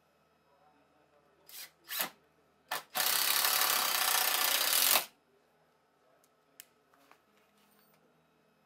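Cordless drill-driver driving a screw into a block of wood: three short bursts of the motor, then one steady run of about two seconds that stops abruptly. A couple of faint clicks follow.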